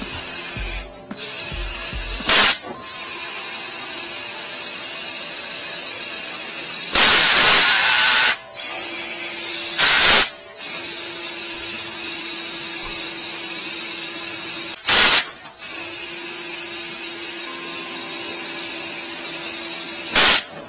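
Flex-shaft drain cleaning machine spinning its cable inside a floor drain, a steady high whirring hiss against epoxy that has hardened in the pipe. It cuts out briefly several times, and there are several louder, rougher spells, the longest about seven seconds in.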